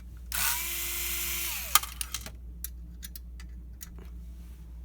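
Electric screwdriver whirring for about a second, spinning up and winding down as it backs out a screw from the scanner's metal chassis, followed by a sharp click and a few light ticks of the screw and tool being handled.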